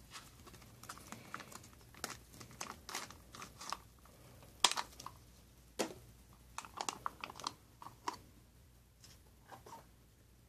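Crinkling and crackling of a foil MRE retort pouch as it is handled and squeezed out, with scattered sharp clicks, the loudest two about five and six seconds in.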